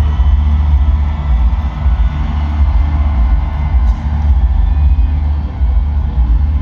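Heavy rock band playing live through an arena PA, loud and dominated by a dense rumble of bass and kick drum that swamps the guitars above it.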